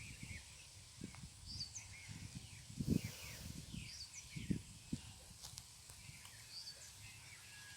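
Wind buffeting the microphone in low gusts, strongest about three and five seconds in, while a bird repeats a short high chirp every two seconds or so, with softer chirping around it.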